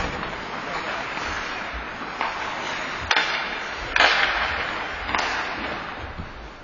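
Hockey rink din: skate blades scraping the ice and sticks clacking on the puck and ice. A sharp crack comes about three seconds in, and the loudest sound, a sudden scraping burst that trails off, about a second later.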